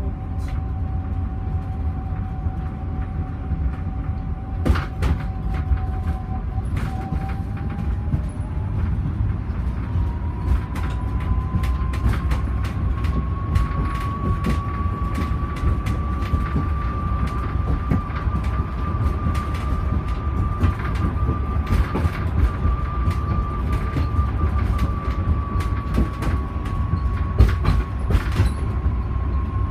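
Heathrow ULTra personal rapid transit pod running along its guideway, heard from inside the cabin: a steady low rumble with occasional knocks and rattles. A thin whine from its electric drive rises in pitch about a quarter of the way in, then holds.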